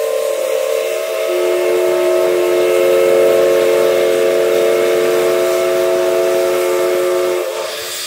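Steam whistle of the Mikado-type (2-8-2) steam locomotive No. 761 sounding one long blast of several notes at once, a lower note joining about a second in. It stops shortly before the end, leaving the steady hiss of escaping steam.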